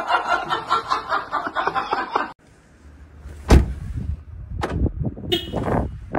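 Voices laughing and chattering, cut off abruptly about two seconds in; then a car door handle is worked and the door clunks, three sharp knocks about a second apart, the first the loudest.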